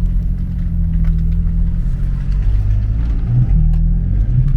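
BMW M4's twin-turbo inline-six engine running with a steady low drone, its pitch shifting slightly a couple of times.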